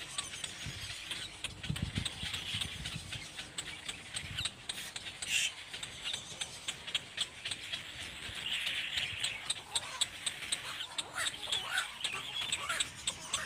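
Raspy, squealing calls of a little black cormorant chick, coming in a few bouts with short gliding calls near the end, over a steady scatter of sharp clicks.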